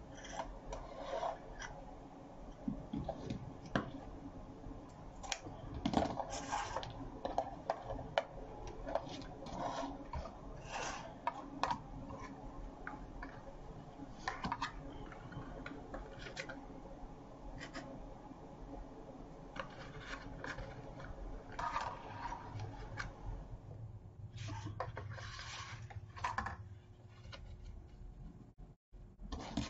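Ribbon being handled on a plastic bow maker and pulled from a spool: rustling and crinkling with scattered light taps and clicks.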